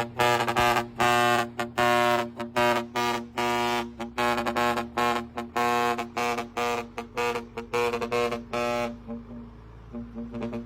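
Musical 'papap' horn playing a fast tune of short, pitched blasts over a steady low drone. It stops about nine seconds in.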